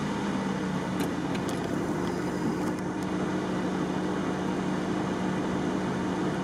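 Engine of a stopped off-road vehicle idling, heard inside its cabin as a steady low hum, with a few faint clicks in the first few seconds.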